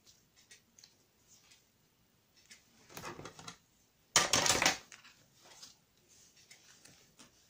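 Paper being cut: a softer cut about three seconds in, then a louder, longer one just after four seconds, with light paper rustling around them.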